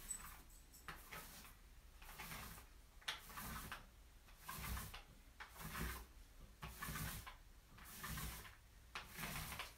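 Paint roller loaded with stone-fleck coating being rolled back and forth across a laminate countertop: faint swishing strokes, about one a second.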